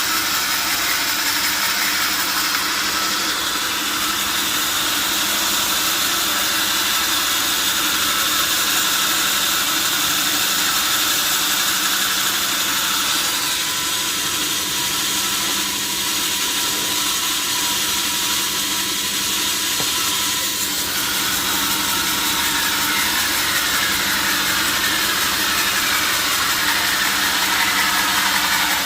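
Power saw running steadily through a large log: constant machine noise with a strong high hiss.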